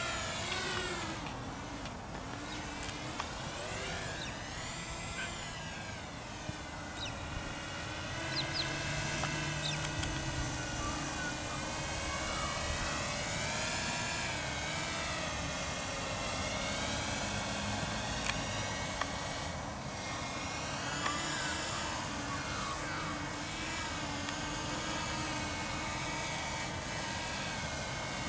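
Walkera F210 FPV racing quadcopter flying fast passes, its brushless motors and propellers making a high whine that rises and falls in pitch over and over as it speeds up, turns and sweeps past.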